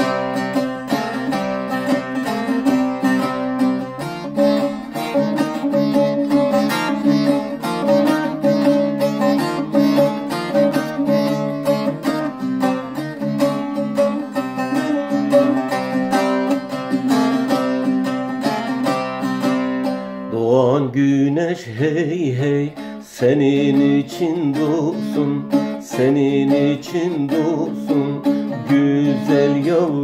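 Bağlama (Turkish long-necked saz) played with fast, even plectrum strokes through a folk melody. About twenty seconds in, the playing thins into a lighter line with gliding, bending notes.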